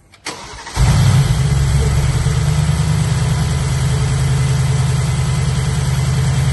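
Mercedes-AMG G63's twin-turbo V8 starting up on its first start after an engine repair: a click and a brief crank, then the engine catches under a second in and settles into a steady idle.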